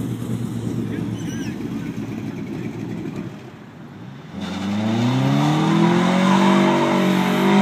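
1965 Ford Mustang drag car's big-block V8 idling with a steady low rumble. About four seconds in it launches and pulls away, its revs climbing and the sound growing louder.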